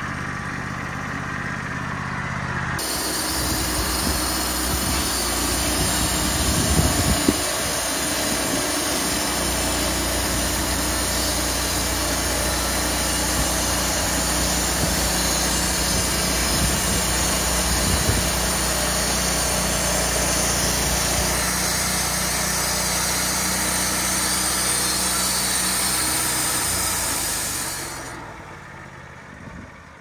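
Wood-Mizer LT40 Wide bandsaw mill at work: its engine runs steadily while the self-feeding saw head carries the band blade through an oak cant, the blade's cutting noise coming in about three seconds in and holding steady over the engine. Near the end the cut finishes and the sound falls away sharply.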